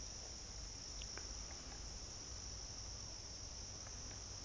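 Crickets chorusing in a steady, unbroken high trill, over a low rumble.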